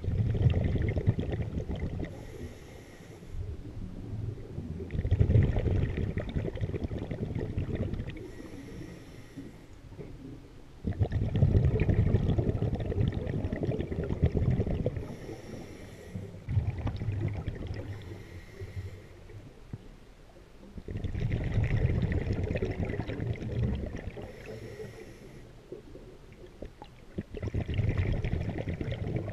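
Scuba diver breathing through a regulator underwater: five long, rumbling gushes of exhaled bubbles, every five to six seconds, with a short hiss of inhalation through the demand valve between them.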